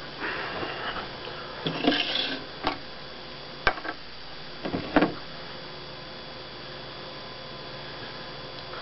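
A few short knocks and clicks as a beer can and other objects are handled and set down on a glass tabletop, the last about five seconds in. A steady electrical hum runs underneath.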